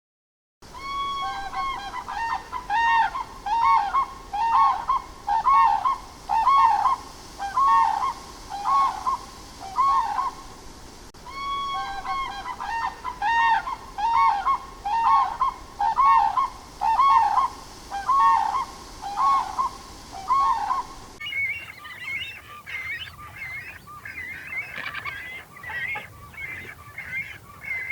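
Waterfowl honking over and over, one pitched call about every second. About two-thirds of the way through, the calls change to quicker, fainter, higher-pitched ones.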